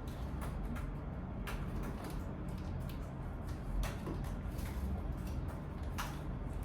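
Room ambience while people work at a table: a steady low hum with scattered light clicks and taps, a few sharper ones about a second and a half, four and six seconds in.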